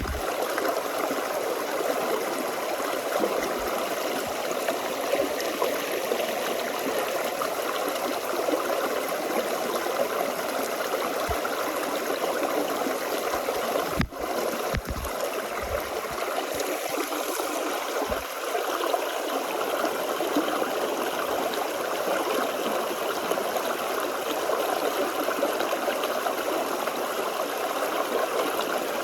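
Forest stream flowing over rocks: a steady rush of water with gurgling and trickling, cut by a brief dropout about halfway through.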